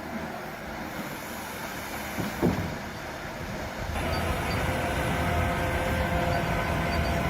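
Heavy forestry machinery engine running steadily, with a single clank about two and a half seconds in. From about four seconds in it gets louder, with a steady whine over the engine.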